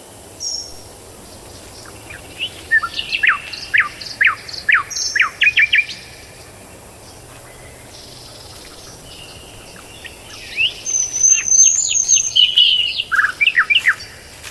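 A songbird singing two phrases, each a quick run of sharp falling notes lasting a few seconds, with a short high whistle in the second phrase.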